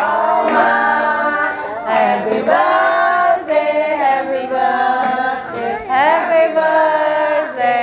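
A group of family members, women and children among them, singing a birthday song together, loudly and not quite in unison.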